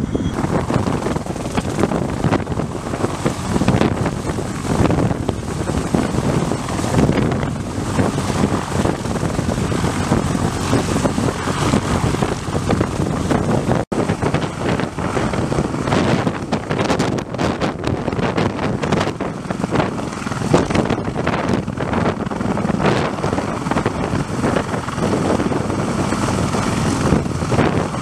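Sikorsky CH-53E Super Stallion heavy-lift helicopter, its three turboshaft engines and main rotor running steadily as it flies with an underslung load. About halfway through it is hovering low overhead, and rotor downwash buffets the microphone with gusty wind noise.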